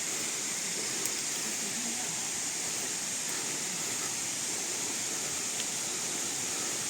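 Waterfall: a steady, even noise of falling water, with a couple of faint clicks.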